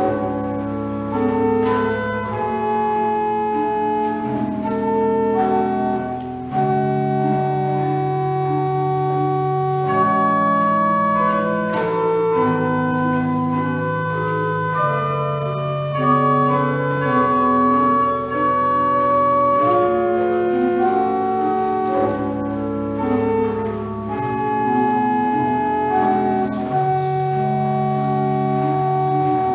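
1874 pipe organ being played: sustained chords with a moving melody on top, over held low notes that change every few seconds.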